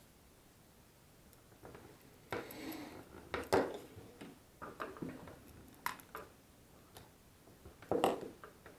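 Irregular clicks and knocks of small hard objects being handled, with a brief scraping rustle; the loudest knocks come about three and a half seconds in and again near the end.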